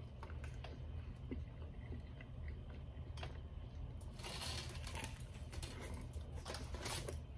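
A person chewing and biting food close to the microphone, with a few short crunchy bursts over a steady low hum.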